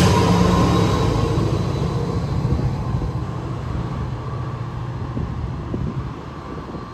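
NJ Transit PL42AC diesel locomotive running steadily as it pulls away, its engine drone and rolling noise fading as the train recedes. A thin steady tone sits above the low drone.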